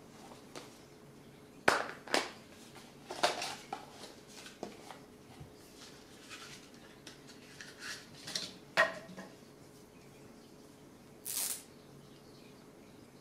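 Handling of a Double 8 film spool and its case: a scattering of sharp clicks and light knocks as the case is opened and the spool taken out, then a short rustle near the end as the film leader is pulled off the spool.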